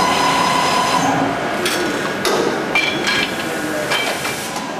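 Galdabini PAS50 straightening press line handling steel truck axle shafts. A steady machine whine stops about a second in. Several metallic clanks and knocks follow, some with a brief ringing, as the shafts are moved through the machine.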